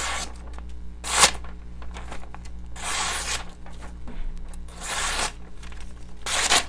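A Benchmade Mini Presidio II's S30V drop-point blade slicing through material in a cutting test, five short hissing strokes about a second and a half apart: the edge is cutting cleanly.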